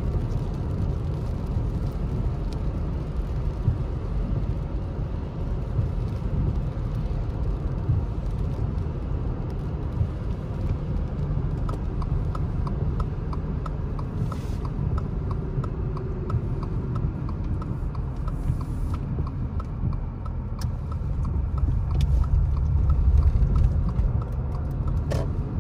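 Car interior road noise while driving on a wet road: a steady low rumble of tyres and engine. For several seconds in the middle comes a run of quick, evenly spaced clicks, about three or four a second. The rumble swells near the end.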